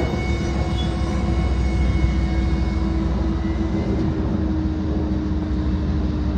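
Diesel-hauled freight train of empty oil tank cars and hoppers rolling past at close range: a steady low rumble of wheels on rail with a held, even hum from the BNSF locomotive.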